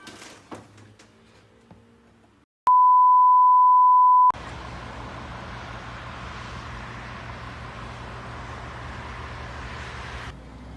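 A single loud, steady electronic beep tone lasting about a second and a half, starting and stopping abruptly out of dead silence. It is followed by a steady rushing noise with a low hum underneath.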